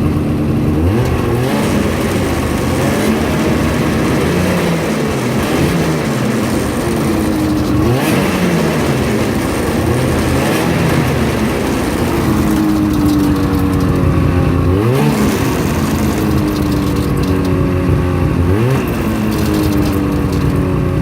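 Two-stroke twin engine of a 2009 Ski-Doo MX Z 500 SS snowmobile idling, revved briefly several times, each rev a quick rise and fall in pitch. It is run to show a clicking noise from the machine.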